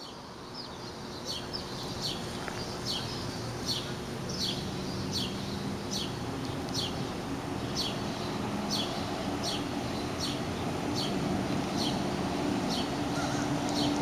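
Cummins ISL9 diesel engine of a 2011 New Flyer XD40 transit bus approaching, a low hum growing steadily louder. A bird gives a short downward chirp over and over, about two a second.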